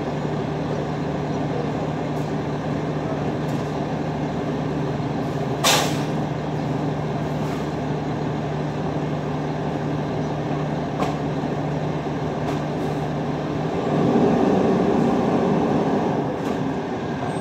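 Trash truck's diesel engine running steadily, with a short hiss of air brakes about six seconds in. The engine grows louder from about 14 seconds as the truck draws near.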